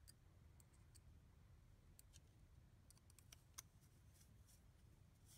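Near silence with faint, scattered small clicks and taps of a carbon fibre drone frame's top plate and small screws being handled, the clearest about three and a half seconds in.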